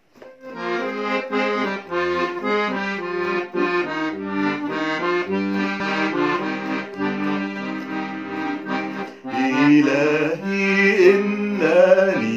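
Piano accordion playing the opening of a hymn tune in steady held chords. A man's singing voice comes in over it about three quarters of the way through.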